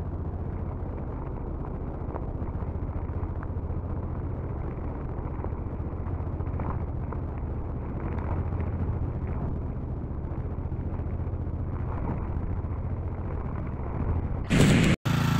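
Tekna TR 60 wheeled brush cutter's four-stroke petrol engine running steadily with its nylon string head working, the sound sitting low with a few faint ticks. Near the end it gets briefly louder, then cuts off abruptly.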